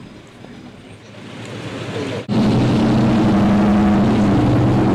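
Faint street noise, then a sudden change a little over two seconds in to a loud, steady engine hum with a constant pitch, like a motor vehicle running close by.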